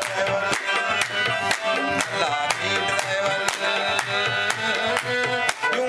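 Instrumental background music: a melody line over a quick, steady drum beat.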